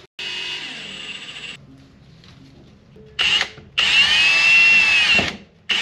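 Handheld drill boring a small pilot hole through a steam tube block-off plate held in a vise: a run of about a second and a half, a quieter gap, then a short burst and a longer, louder run whose whine bends slightly in pitch as the bit cuts.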